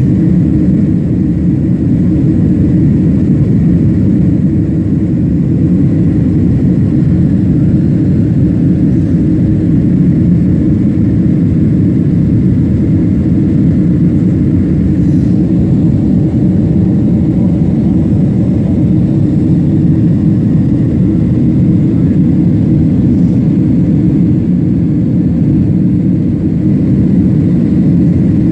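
Airliner cabin noise: the jet engines and rushing air make a loud, steady, deep rumble, heard from inside the cabin during the takeoff.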